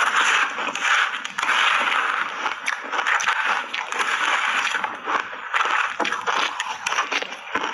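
Close-up crunching of crunchy shaved ice being chewed, coated in matcha and milk powder. It comes as a dense run of crackling crunches in waves, with small sharp cracks throughout.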